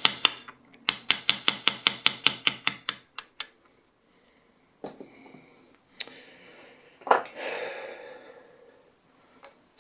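Quick, even file strokes on a metal gun sight, about six a second, stopping about three seconds in, taking material off the sight's tip so it will slide into its dovetail. Then a few separate metal clicks and a short scraping.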